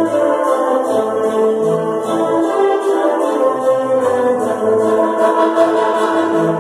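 Symphony orchestra playing live: strings and sustained chords with a faint steady rhythmic pulse, heard from the audience seats.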